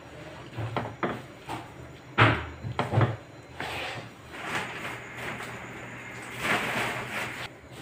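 Wooden spatula knocking and scraping against a nonstick pan while stirring thick noodle soup: several sharp knocks in the first three seconds, then longer rough scrapes.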